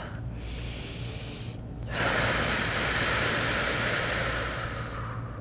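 A woman breathing audibly: a faint slow inhale, then from about two seconds in a long, louder exhale of about three seconds that tapers off near the end.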